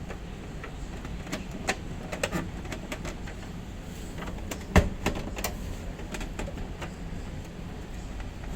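Scattered clicks and knocks from a refrigerator being handled, the loudest a sharp knock near the middle, over a low steady background noise.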